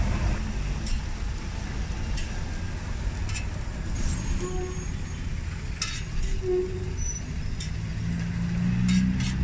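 A metal spatula clicks and scrapes now and then on a flat-top griddle as chopped meat is scooped into bread rolls, over a steady low rumble of street traffic. Near the end a vehicle engine grows louder.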